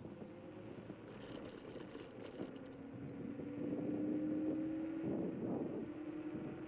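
Zero 10x electric scooter under way: the hub motor's whine, a thin tone slowly rising in pitch, over tyre and road noise. A few light ticks come between one and two seconds in, and it grows louder about three to five seconds in.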